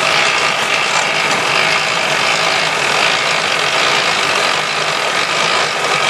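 Semi-trailer landing legs being wound up by hand crank: the legs' crank gearbox turning steadily and without pause, with the tractor unit's diesel engine idling underneath.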